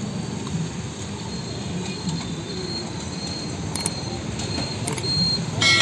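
Bara fritters deep-frying in a large iron wok of hot oil, the oil sizzling over a steady low rumble. A horn starts sounding at the very end.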